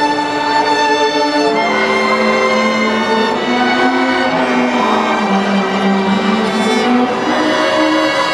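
A student string orchestra of violins and cellos playing Christmas music, bowing long held notes whose chords change every second or two.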